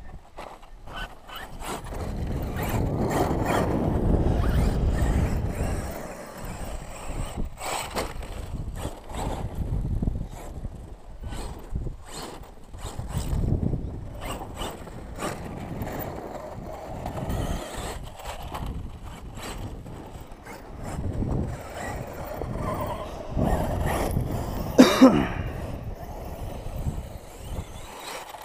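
Wind gusting on the microphone, a low rumble that swells and fades, with scattered ticks and clicks. About 25 s in comes a short whine that rises and falls, the loudest sound.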